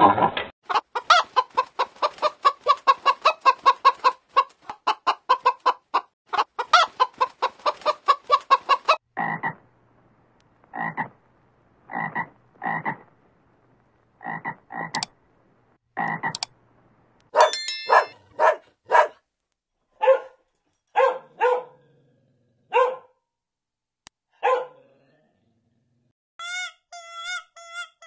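Frog croaking, with no voices: a fast rapid-fire run of croaks for the first several seconds, then single croaks about a second apart, and later a few louder, more widely spaced calls that stop a few seconds before the end.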